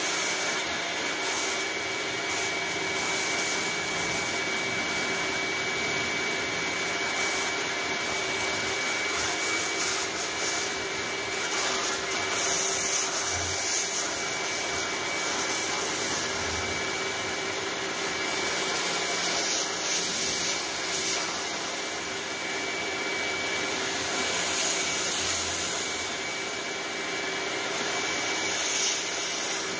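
Pressure washer running, its water jet blasting grime off styrofoam hydroponic panels: a steady spray noise with a constant high whine from the machine throughout.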